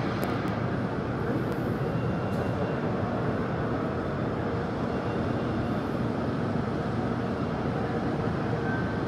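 Boeing 737 MAX 8's CFM LEAP-1B turbofans running at taxi power, a steady jet rumble muffled by the terminal window glass.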